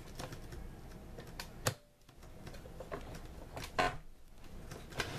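A few sharp clicks and light knocks from hands working a computerized sewing machine, lowering the needle into the fabric before stitching, with no stitching rhythm. The loudest click comes a little after the middle.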